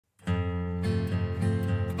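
Background music, an acoustic guitar piece that starts just after a brief silence at the very beginning, its notes changing about every half second.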